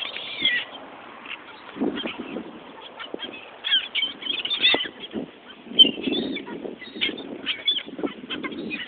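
A flock of wild birds giving short, repeated honking calls as they beg for bread, mixed with low muffled bursts of noise.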